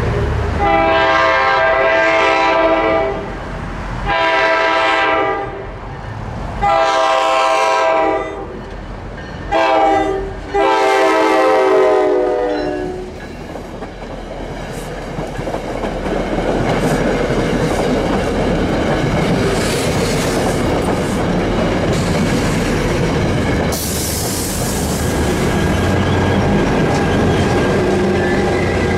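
Nathan K5LA five-chime horn on an NJ Transit GP40PH-2 diesel locomotive sounding five blasts, the fourth one short, the closing long-short-long of a grade-crossing signal. Then the train of coaches passes close by, wheels rumbling and clicking over the rail joints, with a short hiss about 24 seconds in.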